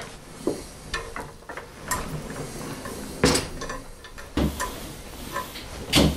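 Hand-turned star-wheel roller press with gear drive running a printing plate under its steel roller: irregular mechanical clicks and clunks from the gears and moving bed. Heavier knocks come about three seconds in and again near the end.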